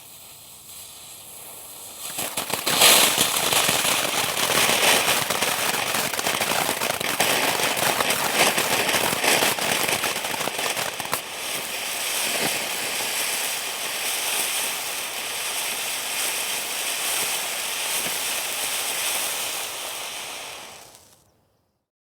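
Firework fountain burning with dense crackles over a steady hiss. It flares up from a faint hiss about two seconds in, is loudest just after, and dies away about a second before the end.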